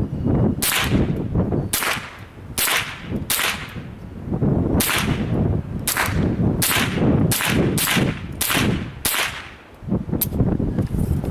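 A Ruger 10/22 semi-automatic .22 rimfire rifle fired about a dozen times in a quick, uneven string, the shots roughly a second or less apart, each a sharp crack.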